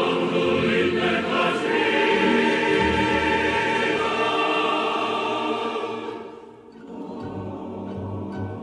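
A choir singing, many voices together in a Slavic language, until about six seconds in. After a short fall in level, quieter orchestral music starts.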